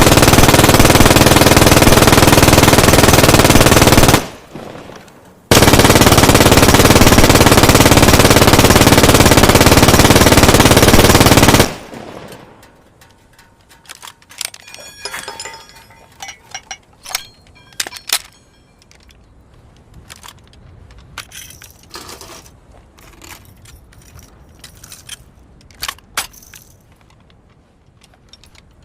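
MG-42 machine gun firing two long bursts, about four and six seconds long, a little over a second apart; the shots run together into one continuous noise. Scattered quieter clicks and knocks follow.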